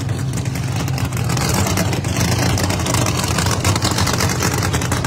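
Drag race car's engine idling steadily, with a choppy, uneven beat.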